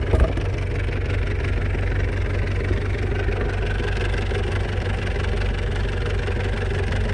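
A fishing boat's engine idling steadily with a low, even hum. There is a short knock just after the start.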